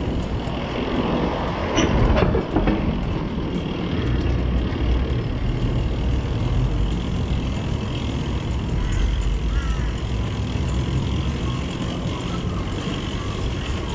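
Steady low rumble of riding a beach cruiser converted to an electric bike with a 1500 W rear hub motor, with a brief louder burst about two seconds in.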